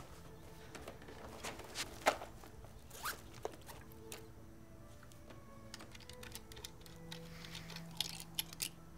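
Zipper on a fabric handbag pulled open, followed by small clicks and rustles of things being moved about inside it. Near the end comes a short run of clicks as a metal hip flask's cap is turned. Soft background music plays underneath.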